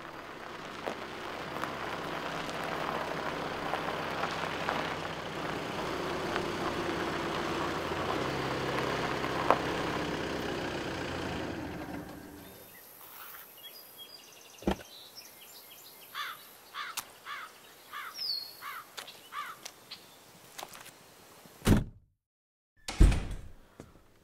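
Volkswagen Golf hatchback driving slowly up a gravel driveway, engine running and tyres crunching; it swells, then dies away about twelve seconds in as the car stops. Birds chirp afterwards, and two loud thuds come near the end.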